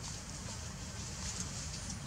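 Steady outdoor background with a constant low rumble and faint, scattered rustles in dry leaf litter.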